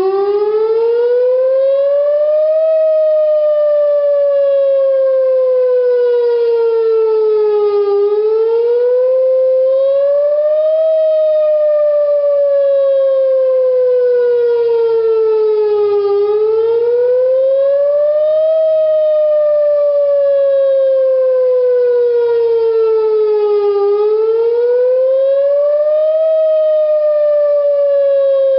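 Whelen WPS-2904 electronic warning siren sounding a wail: the pitch rises for about three seconds and falls for about five, over and over. On the second rise the pitch stalls briefly before climbing on, a lag the uploader guesses comes from activation tones on its radio frequency.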